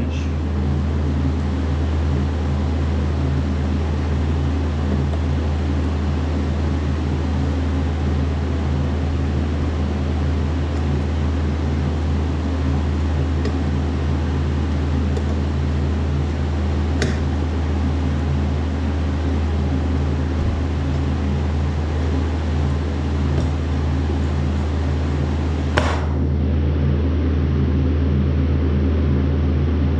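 Steady low mechanical hum of running shop machinery, with a faint metal click midway and a sharper one near the end as the adjustable wrench works on the gauge wheel arm's nut.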